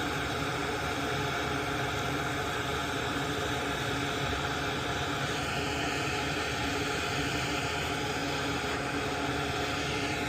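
Hot-air rework gun blowing steadily, an even rushing hiss with a low motor hum under it, used to heat and soften solder and glue so a component can be pulled off a circuit board.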